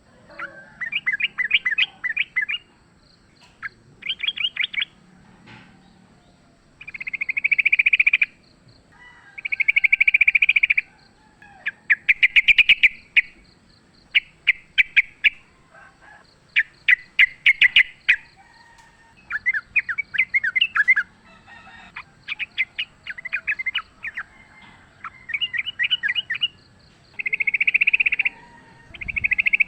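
Yellow-vented bulbul calling in repeated bursts of fast chattering trills, each about a second long, with short pauses between them.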